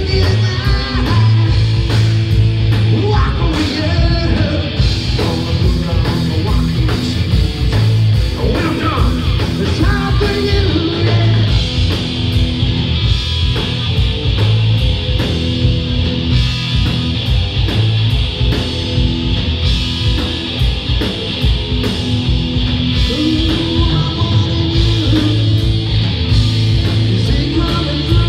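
Live rock band playing loud and without a break: distorted electric guitars and a drum kit with a singer's lead vocal.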